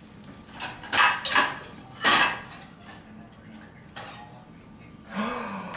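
Plates clattering against each other as they are lifted out of a dishwasher rack: four sharp clatters in the first two seconds or so, and a lighter one about four seconds in.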